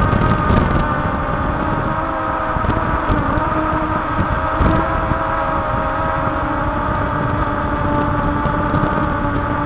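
Drone's electric motors and propellers running steadily in flight: a steady multi-toned whine with only slight shifts in pitch, over a rough low rumble from prop wash and wind on the on-board microphone.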